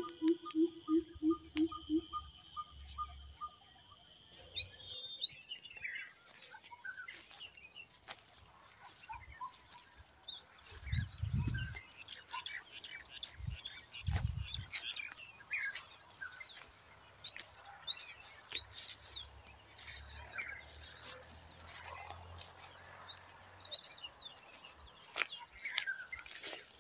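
Rural outdoor birdsong: many short chirps and calls from several birds, with a steady high insect trill at the start. A quick run of low pulsed notes plays in the first two seconds, and there are two dull low thuds near the middle.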